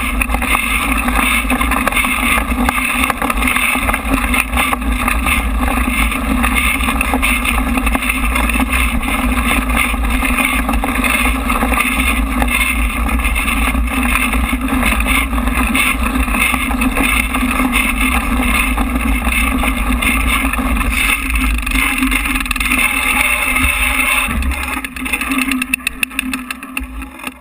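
Continuous wind buffeting and rumble of a mountain bike riding over a dirt trail, picked up by a bike-mounted action camera in its housing. It dies away near the end as the bike slows and stops.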